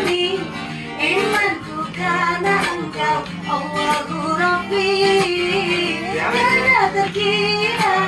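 A woman singing a slow melody, accompanied by a steel-string acoustic guitar.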